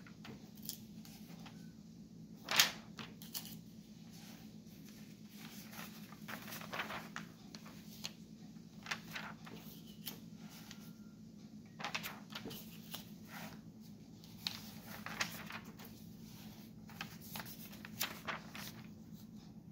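Pages of a glossy magazine being turned and flipped by hand: papery swishes and rustles at irregular intervals, the loudest about two and a half seconds in, over a low steady hum.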